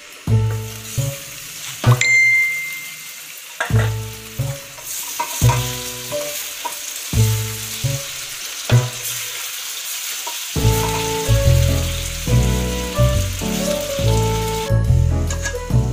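Pork adobo sizzling in a reducing sweet-soy sauce as it is stirred in an aluminium pan with a wooden spatula. A single metallic clink with a short ring comes about two seconds in, as the aluminium lid comes off. Background music with a bass line plays under it and fills out about two-thirds of the way through.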